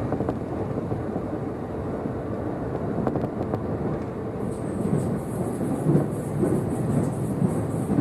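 Joban Line train running along the track, heard from inside the passenger car: a steady low rumble of wheels on rail. A thin high hiss joins about halfway through.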